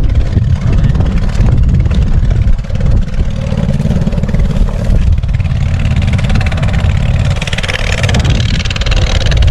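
Small outrigger fishing boat's motor running steadily while the boat is underway: a loud, continuous low rumble.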